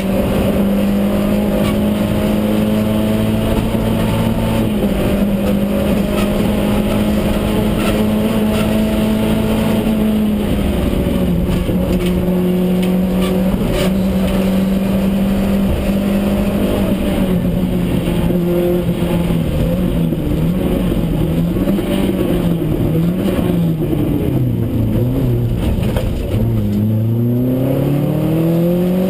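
Rally car's engine at speed, heard from inside the cabin. Its pitch holds steady for about ten seconds, drops, dips and rises several times, then climbs steadily near the end as the car accelerates.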